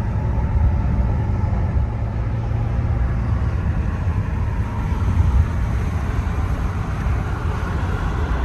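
Car driving, heard from inside the cabin: a steady low road and engine rumble with no distinct events.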